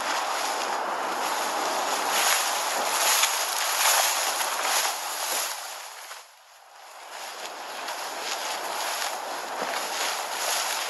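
Tall grass rustling and swishing as someone walks through it: a steady rustling hiss with repeated brushing sounds. It fades out briefly about six seconds in and builds back up.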